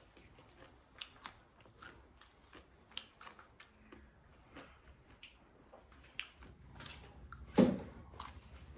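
A person chewing and biting food close to the microphone, with small scattered clicks and crunches. One much louder knock comes about three-quarters of the way through.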